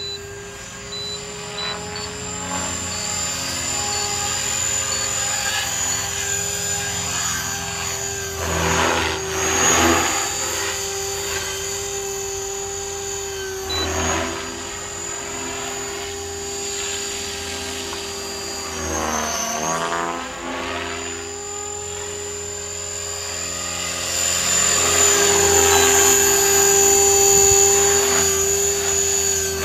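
Electric Align T-Rex 500 RC helicopter flying 3D aerobatics: a steady high motor and rotor whine. The pitch dips and swells briefly several times as the rotor is loaded in manoeuvres, and it grows louder near the end as the helicopter passes low and close.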